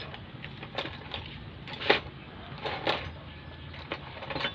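Scattered metallic clinks and taps of hand tools and engine parts being handled, the loudest about two seconds in, over a faint low hum.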